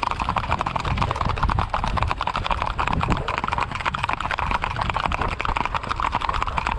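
Hoofbeats of several gaited horses in a rapid, even clatter of many quick footfalls.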